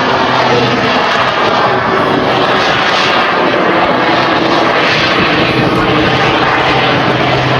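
Aircraft engines of a display team flying overhead, loud and continuous, the tone shifting slowly as the aircraft move.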